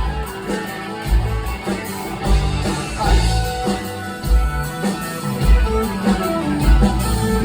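Live rock band playing an instrumental stretch with the guitar to the fore over a repeated low beat.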